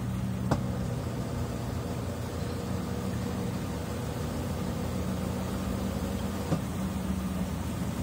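Consul 13 kg top-load washing machine spinning its basket at speed with a load of towels: a steady motor hum with a faint higher whine, and two short knocks, one about half a second in and one about six seconds later.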